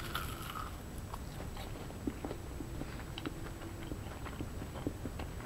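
A person biting into a homemade batter-fried corn dog about a quarter second in, then chewing it with soft mouth clicks.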